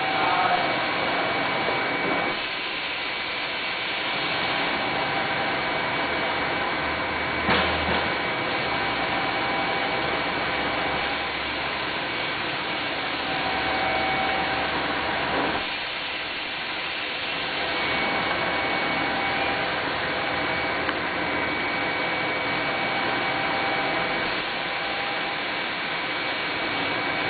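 Small 6 V air blower running steadily with a whine, pushing air into a water tank so a dense stream of bubbles rises and fizzes.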